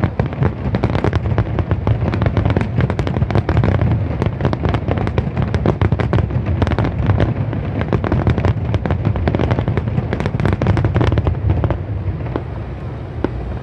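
A dense barrage of fireworks shells bursting in rapid succession, the bangs overlapping one another, then thinning out and growing quieter near the end.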